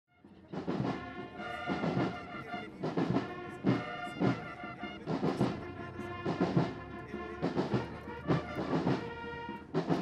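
A military band playing a march: drums beat about twice a second under sustained brass chords. It starts about half a second in.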